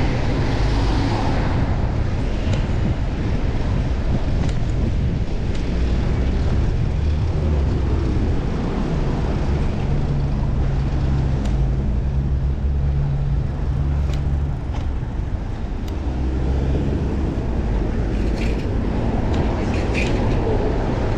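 Steady low rumble of wind and road noise on a bicycle-mounted action camera's microphone while riding a fixed-gear bike, with passing city traffic. A few light clicks come near the end.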